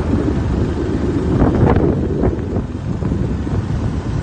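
Heavy wind buffeting the microphone of a moving vehicle, over a steady road and engine rumble.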